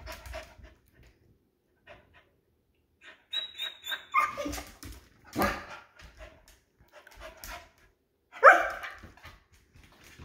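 A dog barks a few times, the loudest bark coming near the end and rising in pitch. There are short high squeaks before the first bark and small clicks of claws on a tile floor.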